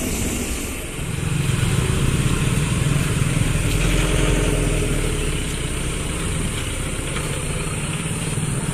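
Motorcycle and scooter engines running and pulling away in a group as traffic crosses the railway tracks, with a truck engine among them. A steady engine hum starts about a second in and is loudest for the next few seconds.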